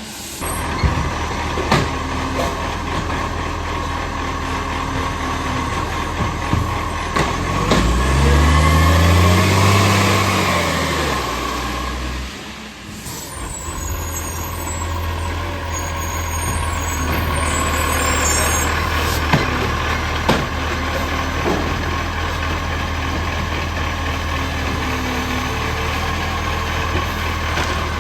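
Garbage truck's diesel engine running, rising in pitch and falling back once about eight seconds in, with scattered sharp clicks and knocks. The truck has an exhaust leak.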